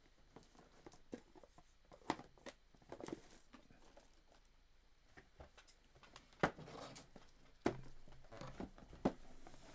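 Scattered light knocks and taps with faint rustling, from small boxed items being handled and set down; the sharpest knocks come about six and a half and seven and a half seconds in.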